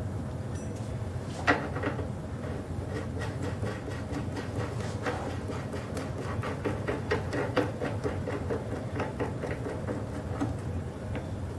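Light metal clicking and clinking as a springer fork's steering-stem parts (bearing, dust cup and top hardware) are fitted together dry by hand at the frame neck, with one sharper click about a second and a half in. A steady low hum underlies it.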